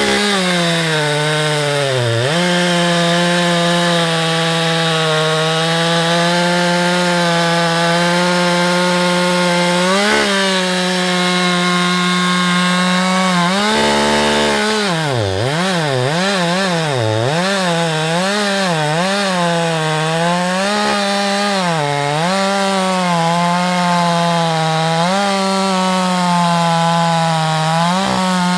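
Husqvarna 365 two-stroke chainsaw with a 24-inch bar cutting through a log, running at steady high revs under load. About halfway through the revs drop briefly, then rise and fall over and over for several seconds before it settles back into a steady cut.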